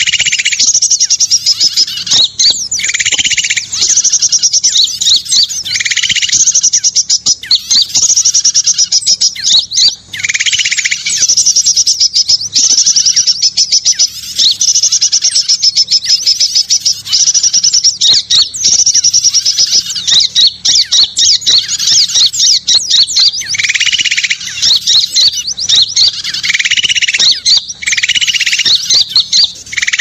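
Bird-luring recording (suara pikat) of many small songbirds calling at once: a constant dense chatter of high chirps and rapid trills, with a slightly lower call breaking in every few seconds.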